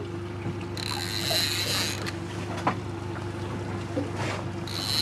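Fishing reel's drag buzzing twice, about a second each time, as line is pulled off the reel by a hooked fish running against the bent rod.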